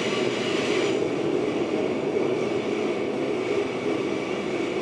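Steady running noise inside a passenger train carriage: an even rumble with a faint high whine above it.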